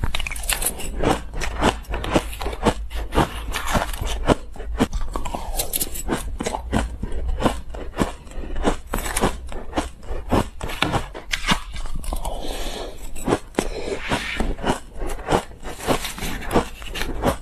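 Crushed ice being chewed close to a clip-on microphone: a continuous run of crisp, rapid cracks, with a metal spoon scraping through the ice in a glass dish about twelve seconds in.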